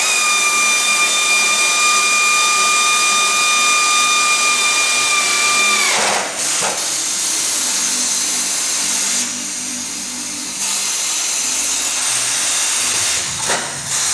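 A handheld power drill running down the engine-mount bracket bolts on a Yamaha Banshee frame. It starts with a steady high whine, then about six seconds in the pitch drops as the motor slows under load. It runs on rougher until it stops near the end.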